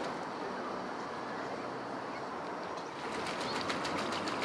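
Australasian swamphen bathing in shallow water: a steady wash of water noise, then about three seconds in a quick run of sharp splashes, several a second, as it beats its wings in the water.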